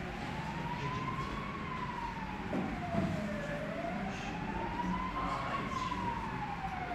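A siren wailing, its pitch rising and falling slowly, about one cycle every four seconds.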